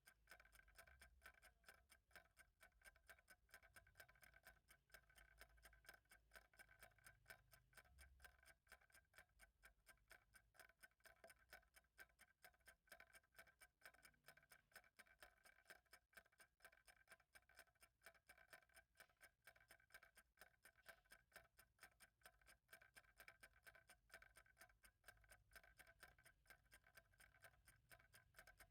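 Faint, steady ticking of a clock, an even run of light ticks with a slight ring to each.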